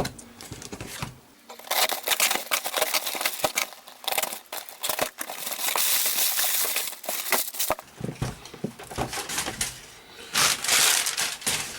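Packaging crinkling and tearing in repeated handfuls, as wrapping is pulled off an item being unpacked.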